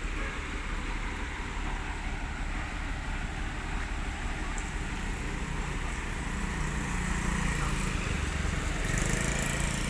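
Hitachi crawler excavator's diesel engine running steadily, growing a little louder in the second half.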